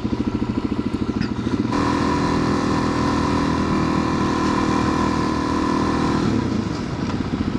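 Motorcycle engine with a pulsing idle; about two seconds in the revs rise suddenly and hold steady for a few seconds, then ease back down to the pulsing idle near the end.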